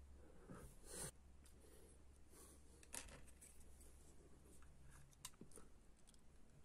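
Near silence with a few faint scratches and light clicks: a plastic pick working a breech seal into its groove in the breech of an Air Arms S510 air rifle.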